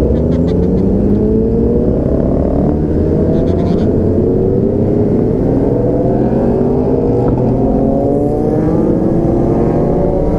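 Motorcycle engine accelerating under way, its pitch rising in long slow sweeps and dropping back between them, over a dense low rush of wind and road noise.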